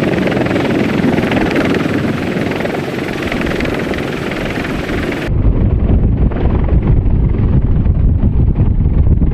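CH-53E Super Stallion heavy-lift helicopter running close by, a dense rushing rotor and turbine noise. About five seconds in it changes abruptly to a deep, heavy rumble with wind buffeting the microphone.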